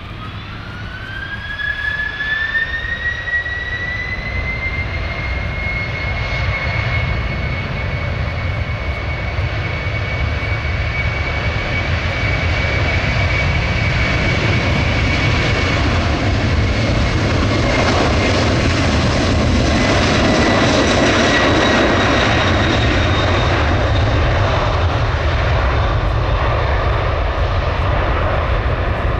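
Heavy jet airliner's engines spooling up to takeoff power. A whine rises in pitch over the first few seconds and then holds steady, while a deep rumble grows steadily louder.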